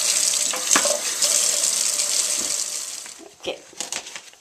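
Kitchen faucet running, its stream splashing over carrots in the sink as they are washed; the water sound cuts off about three seconds in, followed by a few light knocks.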